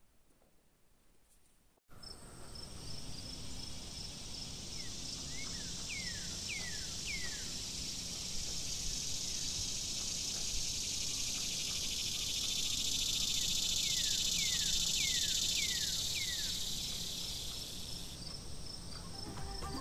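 Outdoor ambience of an insect chorus: a steady high shrill with a chirp repeating about four times a second. Two runs of four or five quick falling whistles from a bird come about five and fourteen seconds in. It starts suddenly after about two seconds of near silence.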